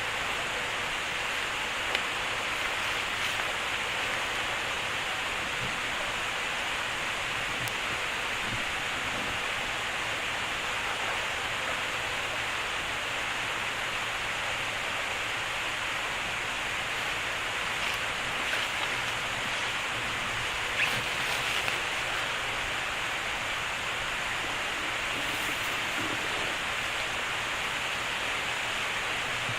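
Mountain stream rushing in a gorge, a steady even hiss of fast water. A few brief faint sounds stand out over it, one about two seconds in and a couple about two-thirds of the way through.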